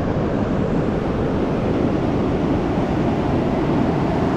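Pacific Ocean surf washing up the beach and around a large beached redwood stump, a steady rush of breaking water.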